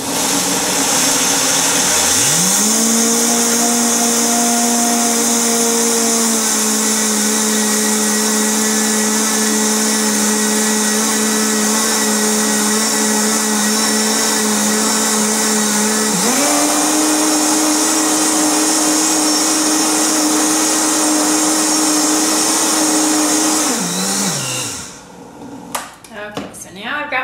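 Vitamix blender grinding old-fashioned oats into oat flour. The motor starts with a rising whine and runs loud and steady over the hiss of the oats. About two-thirds of the way through its pitch jumps higher, and near the end it spins down.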